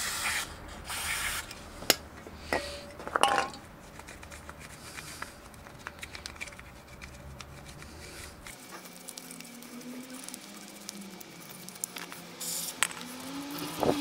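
Short hissing squirts of aerosol cleaner sprayed into a motorcycle brake caliper: two right at the start and another near the end. Between them a cloth rubs and wipes the caliper, with a few small clicks of the metal parts being handled.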